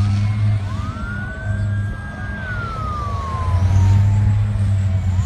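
An emergency vehicle siren wailing: it rises, holds, then slowly falls, over a steady low rumble of vehicle engines.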